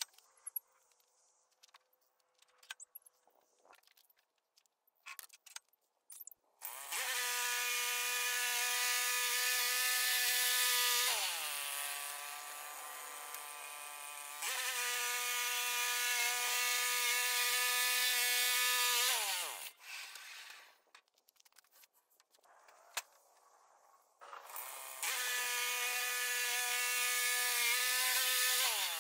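A power drill's motor runs with a steady whine in long runs of several seconds each, its pitch falling each time the trigger is let off. Scattered metal clicks and knocks come before the first run.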